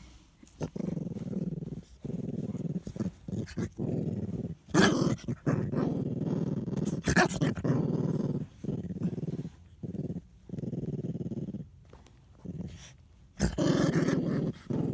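Dog growling in a run of long, low growls broken by short pauses, with a few louder flare-ups, as it guards a sock that a hand is reaching for.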